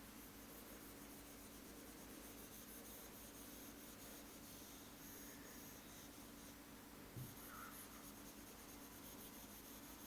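Faint scratching of a stylus stroking back and forth across an interactive whiteboard screen as a shape is coloured in, with a short pause about two thirds through.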